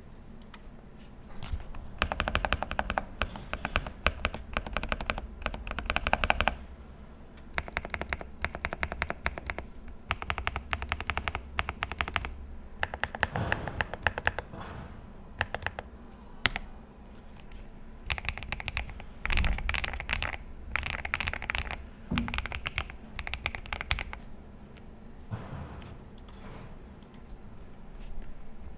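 Typing on a Monka 3067 custom mechanical keyboard fitted with MZ Z1 switches and Cherry-profile keycaps. Rapid keystrokes come in bursts of a few seconds, with short pauses between them.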